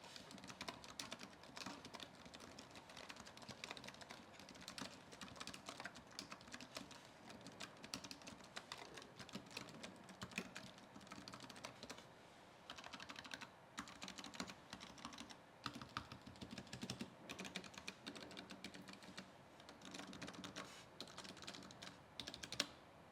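Typing on a Keychron B33 wireless keyboard's low-profile scissor-switch keys: a fast, irregular patter of soft key clicks, with a brief lull about twelve seconds in and one louder clack near the end.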